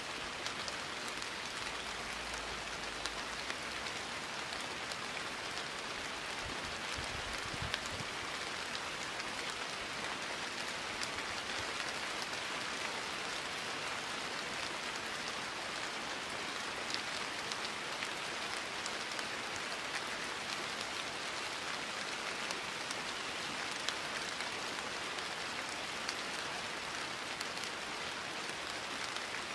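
Steady rain falling: an even hiss of rain with scattered drop ticks.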